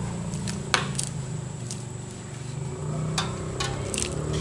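A metal spoon knocking lightly against a metal saucepan and a plastic bowl, about five sharp clicks while hot water is added to a mash of fish meat and pellets, over a steady low hum.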